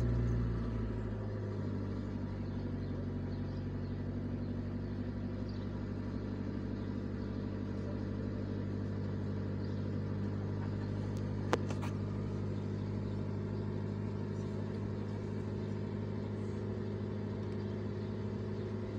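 1995 Honda Civic EG3's D13B2 carbureted four-cylinder engine running at a steady fast idle just after a cold start, heard from inside the cabin. One short click about halfway through.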